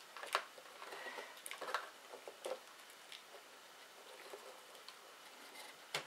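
Light clicks and taps of a small plastic servo and its wires being handled and pressed into place on a foam model plane, with a sharper click about a third of a second in and another near the end.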